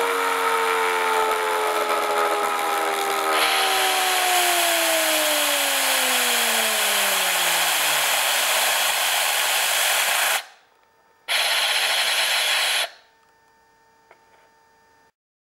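Compressed air hissing through a home-made Tesla turbine with a CD-disc rotor, its whine falling steadily in pitch over about eight seconds as the rotor winds down. The air cuts off about ten seconds in, blasts again for a second and a half, then stops, leaving a faint hum.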